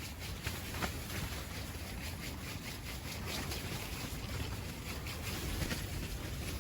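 Strong wind on the microphone: a steady low rumble with faint rustles and ticks.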